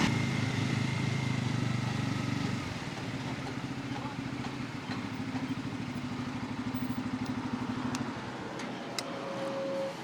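Bajaj Pulsar N250's single-cylinder engine running low and settling to an idle as the bike pulls in for fuel, then stopping about eight seconds in. A few light clicks and a short high beep follow near the end.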